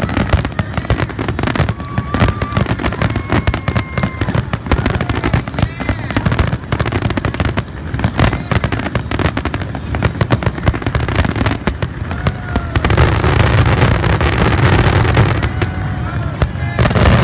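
Aerial fireworks in a rapid barrage, with a dense run of bangs and crackling that thickens and grows louder about 13 seconds in. It is the grand finale of the display.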